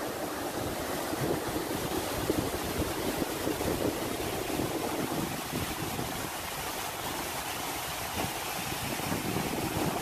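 Waterfall and cascades rushing steadily over rock ledges, a constant roar of falling water, with wind buffeting the phone microphone.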